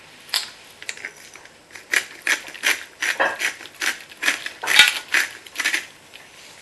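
Pepper mill being twisted to grind pepper: a quick series of short grinding rasps, about three a second, the loudest about five seconds in.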